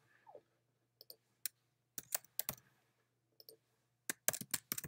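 Typing on a computer keyboard in short runs of keystrokes: a few isolated clicks, a quick group of about four strokes about two seconds in, and a faster run of keys near the end.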